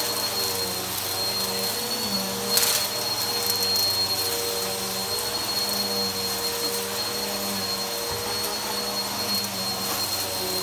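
Bissell upright vacuum cleaner running steadily over carpet, a motor hum with a thin high whine. Its brush roll is turned by a newly replaced belt. There is a brief crackle about two and a half seconds in.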